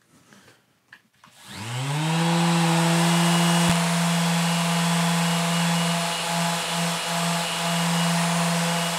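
Mirka Deros electric random orbital sander spinning up about a second and a half in, its pitch rising, then running steadily with a hum and a broad hiss as it sands the cast-iron table saw top with 320-grit mesh abrasive to take off surface rust and stains.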